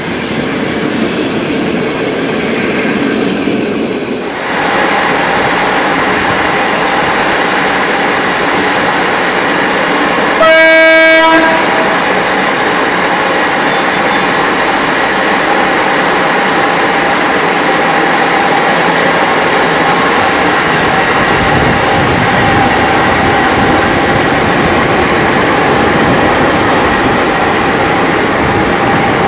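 Passenger coaches rolling past on the rails for the first four seconds. Then a CFR class 40 electric locomotive stands running, with a steady hum, and gives one horn blast of just over a second about ten seconds in.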